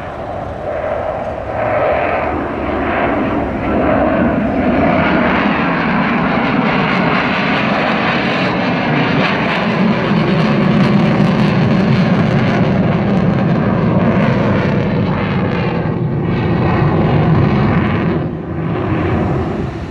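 Mirage fighter jet's engine noise during a flying display, building up over the first few seconds and staying loud, with a brief dip near the end.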